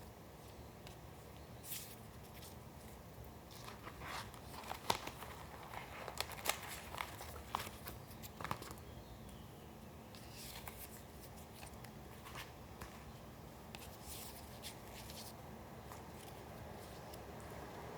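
Pieces of collage paper being handled: soft rustles, crinkles and light taps, busiest in the middle, with a few more scattered ones later, over faint steady room noise.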